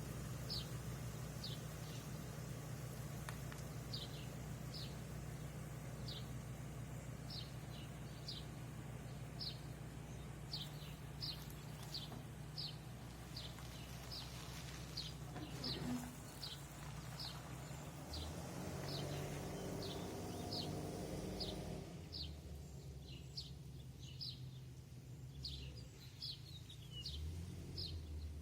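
A bird calling over and over, short high chirps that drop in pitch, about one or two a second, over a steady low hum that stops about 22 seconds in.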